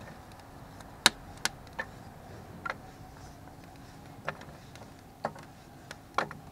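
Blocks of wood knocked and set down in the cast refractory-concrete burn chamber of a batch-box rocket heater: a run of sharp, irregularly spaced wooden clacks, about seven in all, over a faint steady hum.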